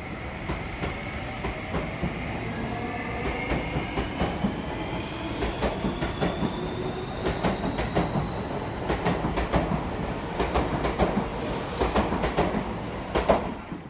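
Seibu Railway 30000 series eight-car electric train (set 38115F) pulling out along the platform. The traction motors' whine rises steadily in pitch as it accelerates, over wheels clicking on the rail joints, the clicks coming more often and louder toward the end.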